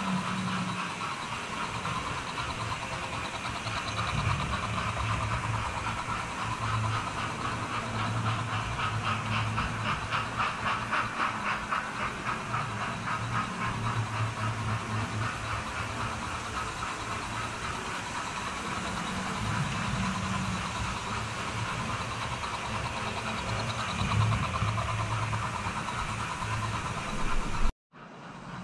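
Model trains running on the layout's track: a steady motor whine with a fine rhythmic clatter of wheels on the rails, strongest in the middle. Near the end there is a click and the sound drops out abruptly.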